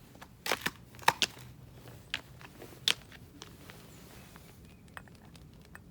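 A handful of short, sharp clicks and crunches, most of them in the first three seconds, over a faint background.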